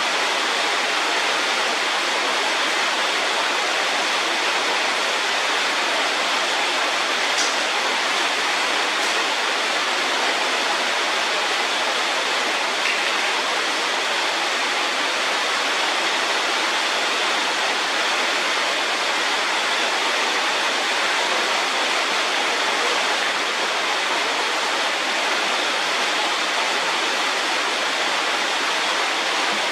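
Steady, unbroken rushing noise, even in level throughout.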